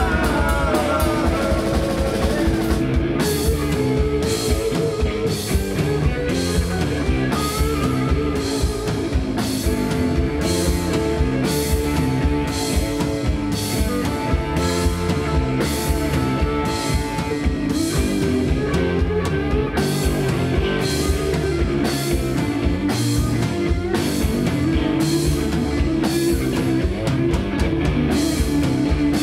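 Live rock power trio playing an instrumental passage: electric guitar over bass guitar and a drum kit, with the cymbals keeping a steady beat and some long sustained guitar notes.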